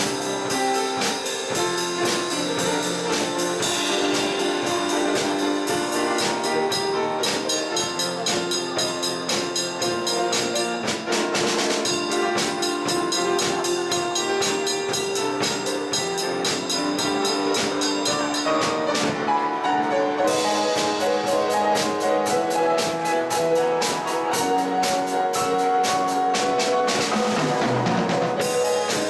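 Grand piano and drum kit playing a piece together. The drums keep a steady beat with cymbal strikes under the piano's chords and melody.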